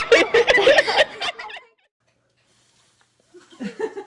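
People laughing and chuckling, cut off suddenly after about a second and a half; a second or so of dead silence, then faint sound of a new scene starts near the end.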